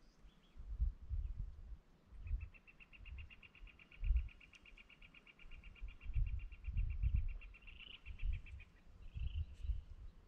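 A long, even trill of rapid high notes, several a second, starts about two seconds in, runs for about six seconds and stops shortly before the end, followed by a couple of short high chirps. Under it, irregular low rumbling gusts of wind hit the microphone.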